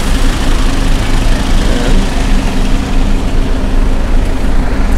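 Street traffic with engines idling, a steady low engine hum from a city bus and cars close by.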